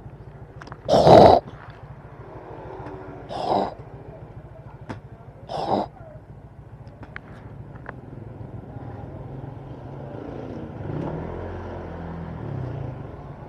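Motorcycle engine running low and steady, broken by three short loud bursts in the first six seconds, the first the loudest. Near the end the engine sound swells and its pitch wavers up and down.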